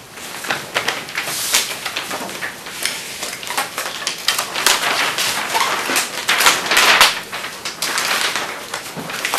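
Large paper sheets rustling and being handled, with scattered light knocks and clicks.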